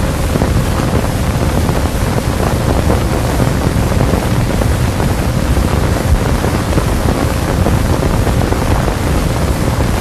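Steady hiss and low rumble of an old film soundtrack's noise floor, with no distinct events.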